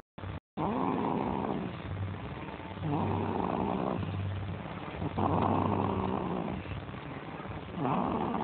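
Slow, rhythmic snoring, one breath about every two and a half seconds, broken by two brief dropouts near the start.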